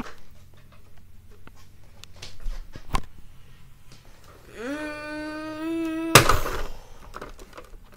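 A child's voice sliding up into one held, wailing note for about a second and a half, cut off by a sudden loud crash-like burst of noise, the loudest sound here, as a toy is swung through.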